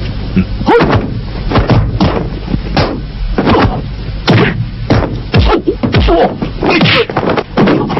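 Kung fu fight sound effects: a rapid series of whooshing strikes and thuds, about a dozen over several seconds, with short shouts and grunts from the fighters.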